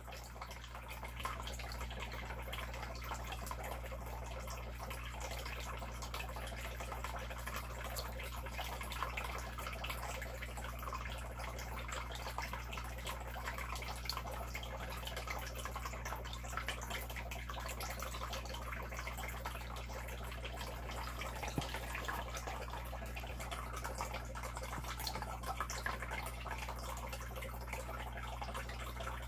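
Water in an aquarium trickling and dripping steadily, with a fine continuous patter over a constant low hum.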